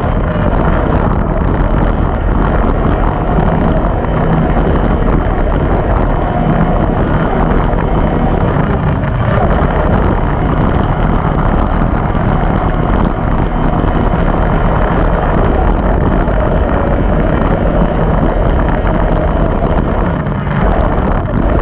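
Arctic Cat Wildcat XX race UTV engine running hard, heard from inside the car, its pitch rising and falling through the course, with wind buffeting the microphone.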